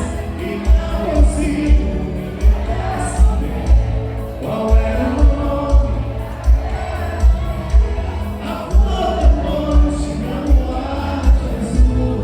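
Live forró band music with a strong bass drum beat about twice a second and singing over it.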